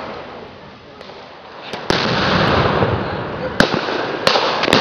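Blank gunfire and pyrotechnic charges in a staged battle: about five sharp bangs in under three seconds, starting about two seconds in, the second bang the loudest.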